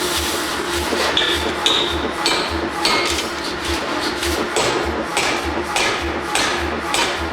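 Forging hammer blows on metal, about one and a half strikes a second, several leaving a short metallic ring, with background music under them.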